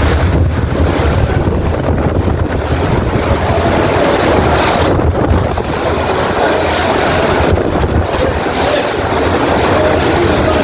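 Hurricane wind buffeting the microphone: a heavy, steady low rumble with a rushing hiss over it.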